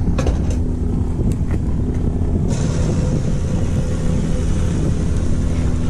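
Steady low rumble of wind on the microphone over a constant mechanical hum.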